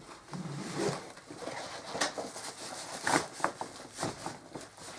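A canvas backpack being handled and opened: rustling of the fabric and straps, with a few short sharp clicks from its fittings.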